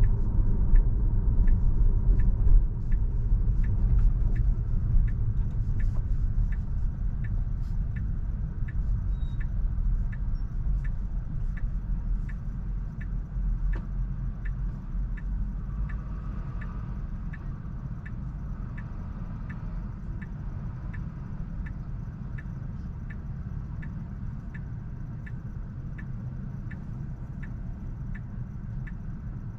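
Road and tyre rumble inside a Tesla's cabin, fading steadily as the car slows, with the turn signal ticking evenly about one and a half times a second.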